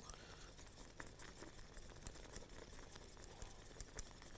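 Wire whisk stirring a thick béchamel sauce in a small stainless steel saucepan: faint, quick, irregular ticking and scraping of the wires against the pan.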